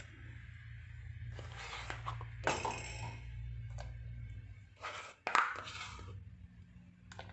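Steel spoon scraping and clinking against the rim and side of a steel pot as lumps of thick batter are knocked off into milk, several separate clinks and scrapes. A low steady hum runs underneath and fades about five seconds in.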